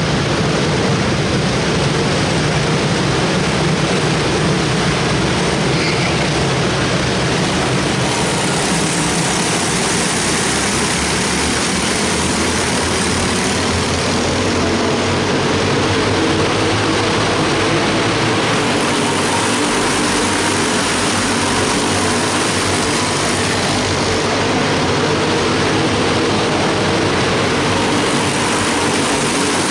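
A pack of small race-car engines running together in a loud, steady, overlapping buzz as the cars lap a flat oval, echoing through a large indoor arena.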